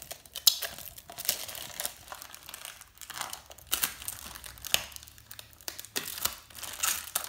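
Thin protective plastic film being peeled off a clear plastic face shield and crumpled in the hand, crinkling and crackling in irregular bursts.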